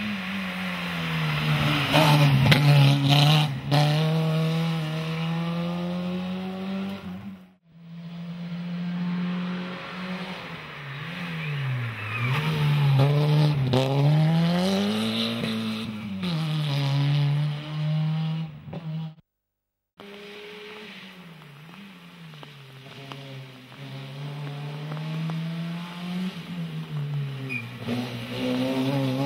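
Peugeot 106 rally car's engine revving hard, its pitch climbing and dropping again and again through gear changes and lifts for the bends. The sound breaks off briefly twice between passes.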